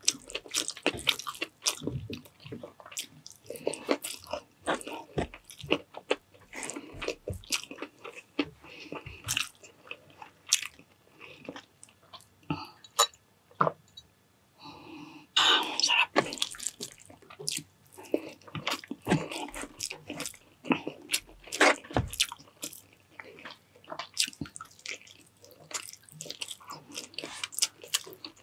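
A person chewing and biting food close to the microphone, with many short crunchy bites; the eating thins out briefly about halfway through, then picks up again.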